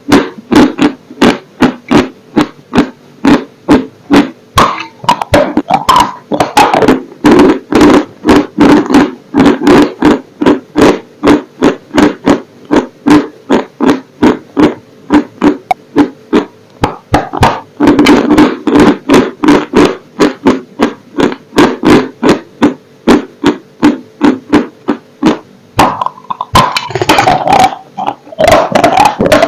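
Close-miked, loud dry crunching as a hard, crumbly block is bitten and chewed, with sharp crunches about three times a second. Near the end the crunches give way to a denser, steadier grinding.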